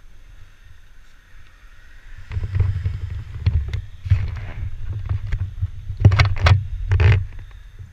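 A GoPro camera being picked up and moved about by hand: an uneven low rumble of handling and wind on the microphone begins about two seconds in, with scattered knocks against the housing, the two loudest near the end.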